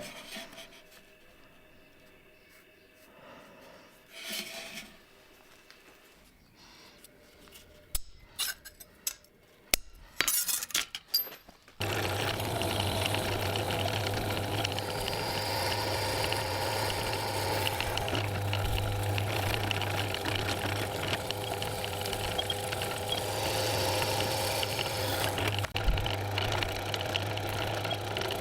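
A few light clinks and rubs of metal tools being handled, then about twelve seconds in a shop machine starts abruptly and runs steadily with a deep hum.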